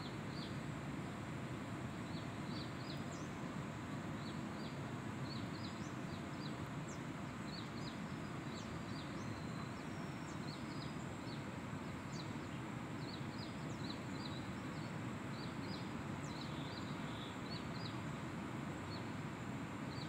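Small birds chirping in many short, high calls, some sweeping downward, scattered all through over a steady rushing background noise.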